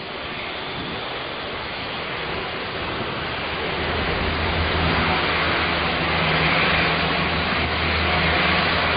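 Boeing 747 on short final approach, its four jet engines making a steady rushing noise that grows louder as it nears. A low drone joins about four seconds in.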